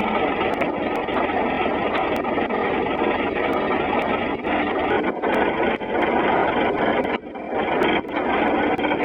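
Train running noise, a steady dense rumble and rattle with a brief drop about seven seconds in, picked up through a flip phone's microphone, which makes it muffled and hard to make out.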